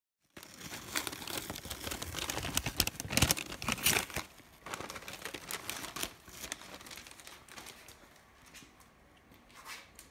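Close rustling and crinkling with many sharp clicks, loud for the first four seconds, then thinning to a faint crackle that dies away near the end: handling noise as the phone camera is moved and held.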